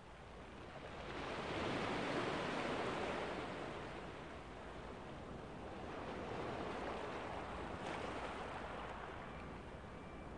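Ocean waves washing ashore. The surf noise builds to a peak about two seconds in, eases off, then rises again in a smaller second wave before fading.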